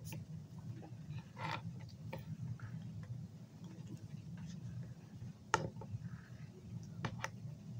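A few sharp clicks and taps from handling Play-Doh and a small plastic roller, two of them close together near the end, over a steady low hum.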